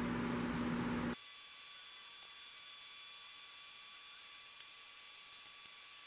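Steady hum with hiss that cuts off suddenly about a second in, leaving a faint hiss with thin, high-pitched electrical whine tones.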